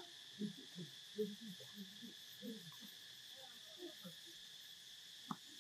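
Steady, high-pitched insect drone, faint, with short, low, irregular calls scattered through it.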